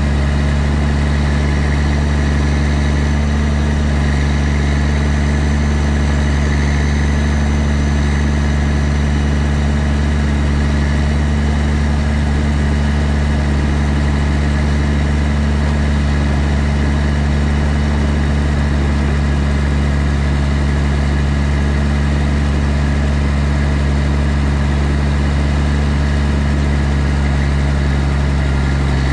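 Kässbohrer Pistenbully 600W Polar snowcat's diesel engine heard at the exhaust, running at a steady, unchanging speed with a deep, even note.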